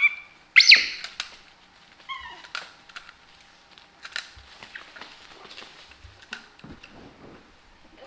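Baby monkey giving high-pitched squeals: one loud squeal about half a second in and a softer short call around two seconds in. Small clicks and taps of the monkey chewing on a plastic toy come in between.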